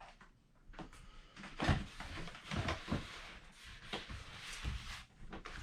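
Handling noises at a workbench: a handful of irregular soft knocks and rustles as the foamboard pieces and gluing tools are picked up and set down.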